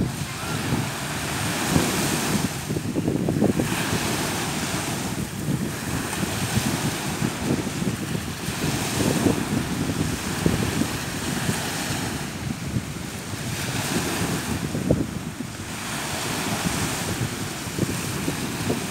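Small sea waves breaking and washing up a sandy beach. The surf swells and eases every few seconds, with wind buffeting the microphone.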